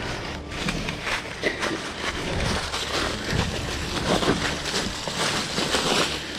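Footsteps crunching and rustling through dry fallen leaves, uneven steps while walking downhill.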